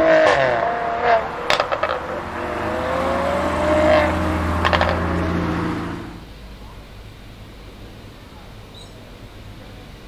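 Brabus-modified Mercedes GLE43 AMG's twin-turbo V6 exhaust: the revs fall with a few sharp crackles about a second in, then the engine pulls up in pitch for a couple of seconds under acceleration, with another quick pop or two, before the sound drops away at about six seconds.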